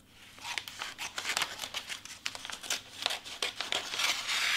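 Glossy wrapping paper crinkling as it is handled around a gift box, with many small sharp crackles. About four seconds in, scissors start sliding through the paper in one long, continuous cut.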